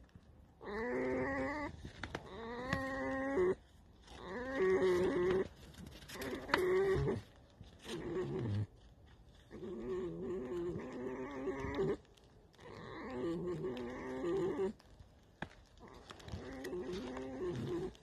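Tame red fox making its creaking call: about seven drawn-out, creaky whining calls in a row, each one to two and a half seconds long with short pauses between.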